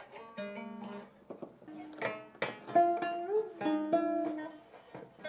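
A twelve-string gayageum being played by hand: separate plucked notes ring out, and a few are bent up and back down in pitch as the left hand presses the string beyond the bridge.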